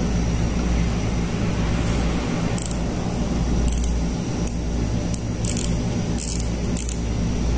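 A spinning fishing reel being handled, giving about six short, high scratchy clicks, over a steady low hum.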